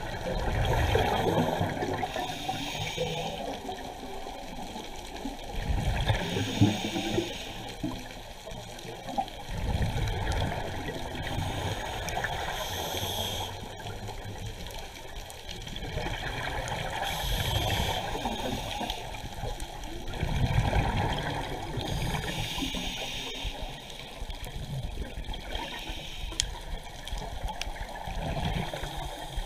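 Scuba diver breathing through a regulator underwater: a hiss on each inhale, then a burst of bubbling exhaust, repeating every few seconds.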